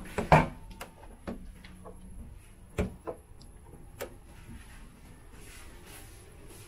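Hotel room door being opened and handled: a series of sharp clicks and knocks in the first four seconds, the loudest just after the start and again a little before three seconds in, then only faint room hum.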